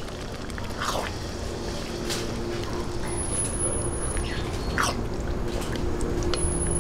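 A silicone spatula stirring thick tomato spaghetti sauce with hotdog slices and ground pork in a non-stick pan, with wet stirring noise and a few sharp scrapes against the pan.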